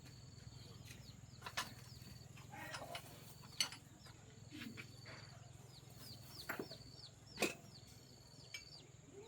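Chickens clucking with short high chirps, under a low steady hum and a few sharp knocks, the loudest about seven seconds in.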